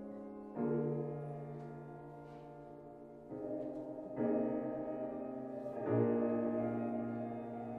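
Piano playing slow chords, four in all, each struck and left ringing as it fades, with a bell-like resonance.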